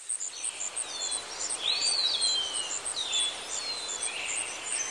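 Birds calling outdoors: repeated downward-sliding whistled calls, one longer than the rest about two seconds in, over a fast, even series of very high chirps and a steady hiss.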